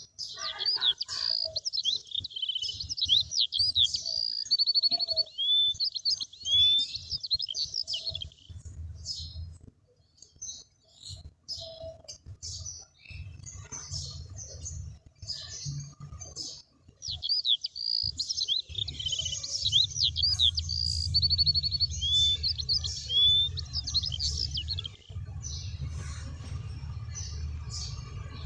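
Small songbirds chirping and trilling: quick high whistled notes and rapid trills, busiest at the start and again about two-thirds of the way in, with scattered calls between and a low rumble underneath.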